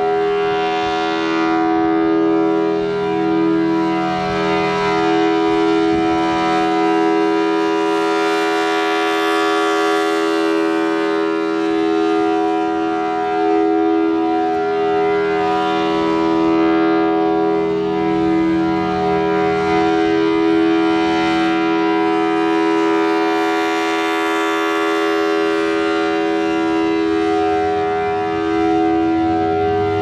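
Federal Signal Thunderbolt 1000T 4/5-port siren sounding a steady full-alert tone, two notes together as a chord. The sound swells and fades about every seven or eight seconds as the rotating horn sweeps past.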